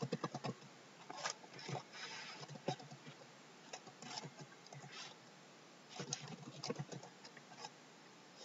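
Computer keyboard typing: faint keystroke clicks in short uneven bursts with pauses between them.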